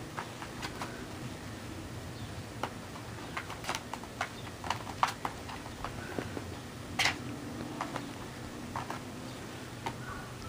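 Two kittens playing in and around a plastic laundry basket of clothes: irregular light taps, clicks and scuffs of paws and claws on the plastic and the carpet, with a louder knock about seven seconds in.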